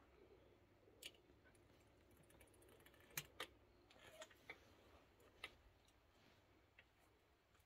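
Near silence, broken by a handful of small, sharp clicks and taps at irregular intervals, two close together about three seconds in: handling noise from a camera being held and set up.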